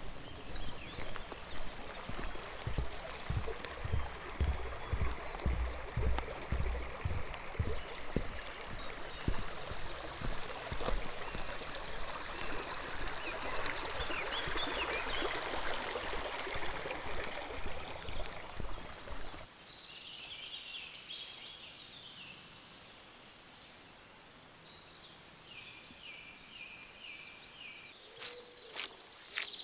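Footsteps thudding about twice a second on a forest trail over the steady rush of a stream. About two-thirds of the way through this cuts off sharply to a quieter forest, where small birds chirp in short repeated series, louder near the end.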